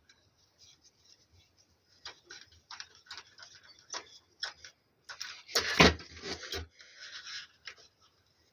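Irregular small clicks, taps and rustles of objects being handled, with a louder run of clattering about five and a half seconds in.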